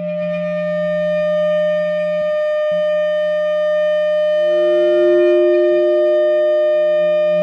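Musser vibraphone feedback: several steady, pure tones held at once as the bars ring through microphones inside the resonators and transducers on the bars, played back over speakers. A new middle tone swells in about halfway through and keeps sounding with the others.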